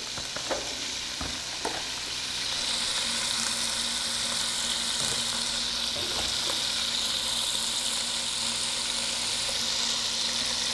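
Food sizzling in a pot on a gas stove: a steady frying hiss that grows a little louder about two seconds in, with a few light clicks of cookware near the start.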